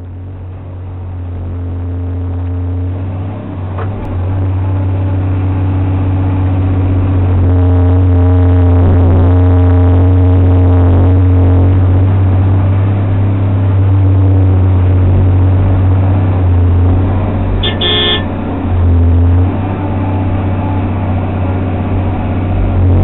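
Cat 345 L excavator's diesel engine and hydraulics working under load while digging and loading gypsum, heard from inside the cab: a deep steady drone whose pitch shifts as the machine digs and swings. A brief high-pitched tone sounds once, about three-quarters of the way through.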